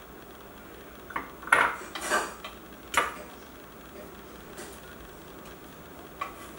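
Chef's knife scraping diced carrot off a wooden cutting board into a small glass bowl, with four or five short clinks and scrapes of the blade between about one and three seconds in.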